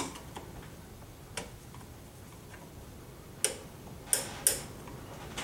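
Rear drum brake self-adjuster star wheel on a 1995 Pontiac Grand Am being turned with a screwdriver, the adjuster lever clicking over its teeth: several sharp clicks at irregular intervals, the loudest in the second half. The adjuster ratchets only one way, the way that spreads the shoes out.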